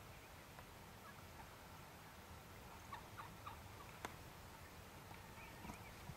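Wild turkey toms gobbling faintly, a few short calls about three seconds in and again near the end. A single sharp click comes a little after four seconds.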